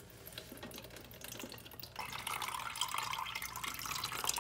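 Leftover water draining out of a toilet tank past the loosened fill-valve nut and trickling into a container below. It starts as faint drips, then becomes a steady, louder trickle about two seconds in.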